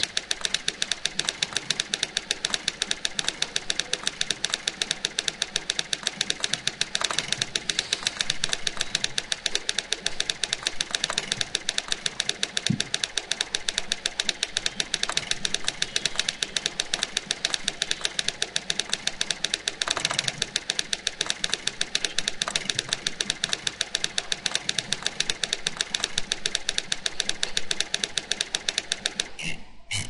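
Typewriter sound effects played by a Flash movie: a rapid, even run of keystroke clacks, one for each character typed, about ten a second, with a different carriage-return sound at each line break. The typing stops just before the end.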